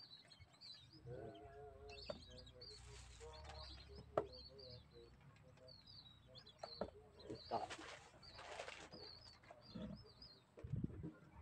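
Many short, high bird chirps and whistles, with some lower repeated calls, a sharp knock about four seconds in and brief rustling.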